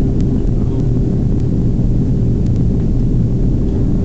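Steady cabin drone of a Boeing 767-300 in flight, heard from a window seat: a constant jet-engine and airflow rush with a steady low hum underneath.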